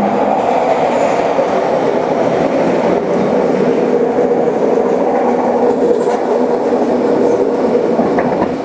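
Vancouver SkyTrain car running at speed, heard from inside: a steady loud rumble of wheels on track with a steady hum.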